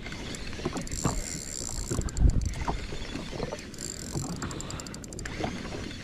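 Fishing reel being wound in short bursts while playing a fish on light line: a fast whirring click from the reel, repeated every second or so. Underneath are wind and water noise and a dull thump about two seconds in.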